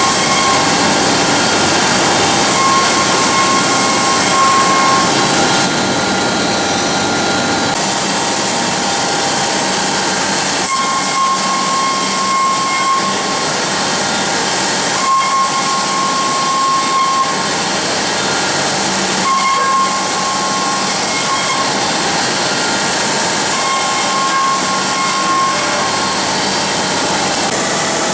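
CNC sink-polishing machine running: a steady hiss of the polishing head working the metal, with a whine that comes and goes about every four seconds.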